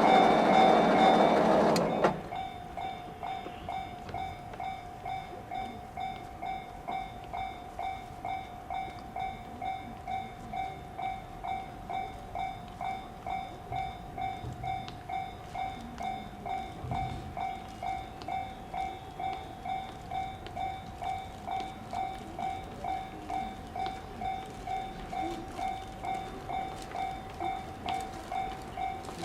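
Railroad crossing warning bell ringing in steady electronic dings at about two a second, the signal that the crossing is closed. A train passing close by is loud at the start and stops suddenly about two seconds in, leaving the bell ringing on alone.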